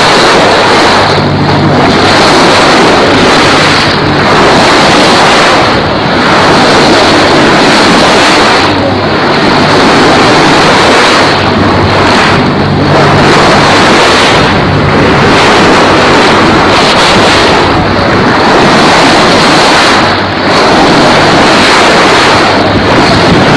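Strong wind buffeting the microphone on the deck of a sailboat under sail, over water rushing past the hull. The noise is loud and dense, easing briefly every two to three seconds.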